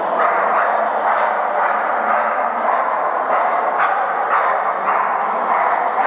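A dog barking repeatedly, often about twice a second, over a steady background noise.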